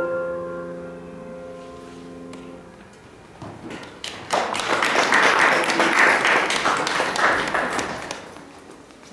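Final chord on a Seiler grand piano, struck and left to ring, dying away over about three seconds. About four seconds in, audience applause starts and then fades near the end.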